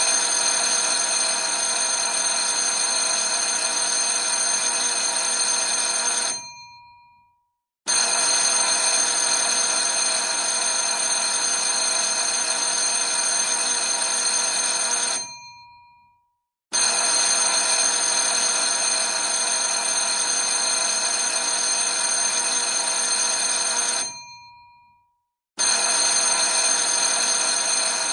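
Old electric school bell ringing in long bursts of about seven seconds each, separated by short pauses. Each ring stops abruptly, and a few of the gong's tones hang on briefly as it rings out. Three full rings sound, and a fourth starts near the end.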